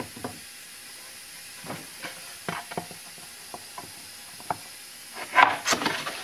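Plywood panels handled on a workbench: a few light knocks and taps as a panel is picked up and set down, then a louder scrape of plywood sliding over plywood near the end as it is pushed into place.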